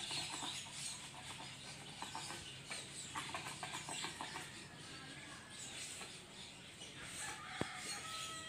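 Chickens clucking in a village yard, with short calls scattered through and a few longer, held notes near the end. A single sharp click comes a little before the end.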